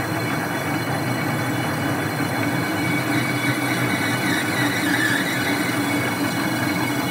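Metal lathe taking a heavy roughing cut on a cast stub-axle flange, hogging off the flange: steady cutting and turning noise with a few held high tones.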